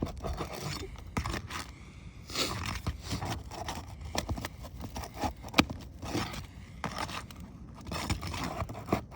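Metal roofing tool prying at the nails in asphalt roof shingles: irregular scraping with sharp clicks and snaps as the nails pull through the shingle.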